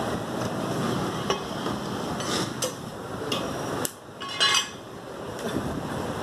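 Butchers cutting mutton with a knife and cleaver on a wooden chopping block: a few short knocks and scrapes over a steady background noise, with one louder sharp sound about four and a half seconds in.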